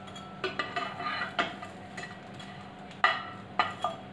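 A metal knife scraping and tapping against a nonstick frying pan as slices of toast are pushed and turned. A run of scrapes and clicks comes in the first second and a half, and three sharp clinks follow about three seconds in.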